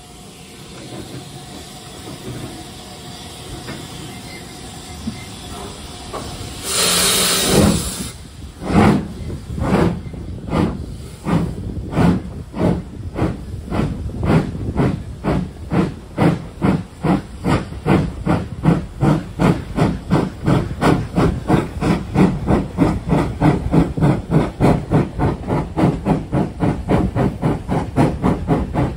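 Steam locomotive pulling a train away, heard from a carriage window: a low steady hiss, then a loud blast of steam about seven seconds in, followed by exhaust beats that start about one a second and quicken to about three a second as the train gathers speed.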